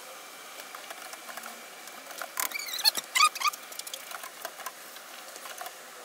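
Steady hiss of a stainless stockpot of water boiling on a burner. A little past two seconds in comes a burst of clatter and squeaky metal-on-metal scraping at the pot, lasting about a second.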